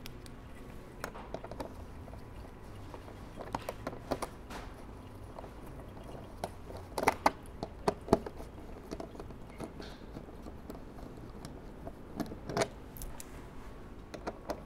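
Scattered light metallic clicks and clinks of a hand socket tool working the screws of a plastic engine splash shield, coming in small clusters, with the sharpest few about seven to eight seconds in.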